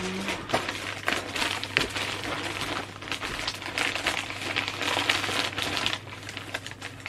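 Plastic packaging crinkling and rustling as it is handled and opened, in an irregular run of crackles.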